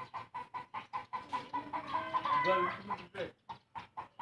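A chicken clucking in a rapid, even run of short clucks, about five a second. A longer, wavering call breaks the run a little past two seconds in.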